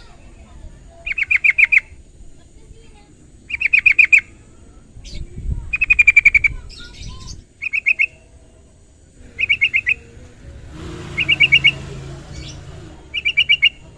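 Yellow-vented bulbul (trucukan) calling in short bursts of rapid repeated notes, about seven bursts spaced roughly two seconds apart.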